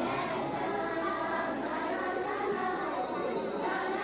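Adolescent gospel vocal group singing a praise song together, many voices at once.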